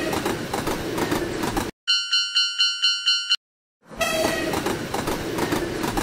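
Cartoon sound effects of a train rushing past a railroad crossing, a noisy rumble that cuts off suddenly after about a second and a half. It is followed by a Japanese crossing bell clanging in quick, even strikes for about a second and a half. After a brief silence the train rush starts again.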